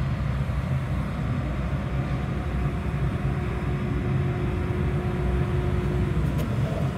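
Steady low mechanical drone, like a machine or motor running, with a brief sharp click near the end.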